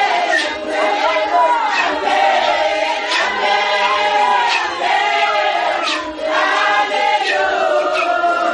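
A congregation of men and women singing together in full voice, many voices on long held notes, with a faint low beat about once a second.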